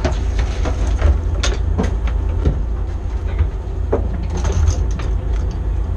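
Steady low rumble aboard a fishing boat, with a few scattered light clicks and knocks of tackle on deck.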